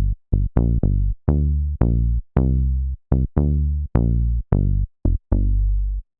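Software synthesizer playing a bass-heavy sequence of short plucked notes, about two a second in an uneven rhythm. Each note has a sharp attack and a filter that closes quickly, so its brightness fades while the low body lasts. Some notes are held longer than others.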